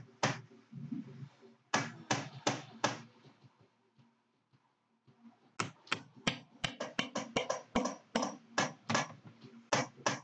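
Ball-peen hammer tapping a punch against a Marlin 60 rifle part to drive out a pin, in short sharp taps: one at the start, four about two seconds in, then a long run of quick taps from about halfway to the end.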